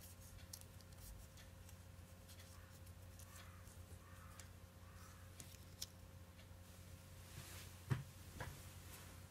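Faint crinkling and rustling of origami paper being pressed and shaped by hand. About eight seconds in comes a short knock, the loudest sound, as the folded paper candle is set down on the cutting mat, followed by a softer tap.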